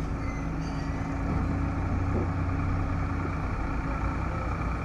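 Diesel engine of heavy earthmoving machinery, a backhoe loader or tractor, running steadily and getting a little louder about a second in.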